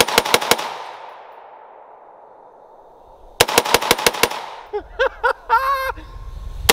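FN SCAR 16S 5.56 semi-automatic rifle fired as fast as the light trigger can be pulled: a quick string of about six shots at the start, echo dying away over the next few seconds, then about eight more rapid shots about three and a half seconds in.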